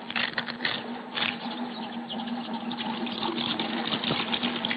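Cast-iron hand water pump being worked, with clanks from the handle and water running into a metal bucket, over a steady hum. A few sharp knocks come in the first second or so.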